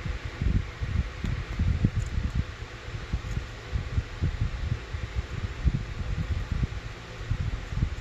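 Wind buffeting the microphone: an uneven low rumble of gusts over a steady hiss.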